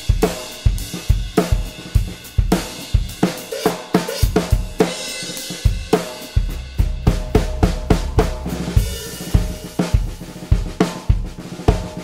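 Drum kit groove: kick drum, hi-hat and cymbals with backbeats on a metal 6.5x14-inch snare. The snare is tuned high with no tape or muffling, so it rings loud and long after each hit.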